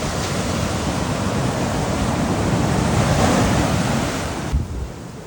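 Ocean surf washing up on a sandy beach, with wind buffeting the microphone. The rush swells about three seconds in and falls away sharply near the end.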